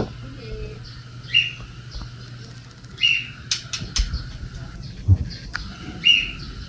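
A bird giving short chirping calls, three of them a few seconds apart, over a low steady hum and scattered light clicks.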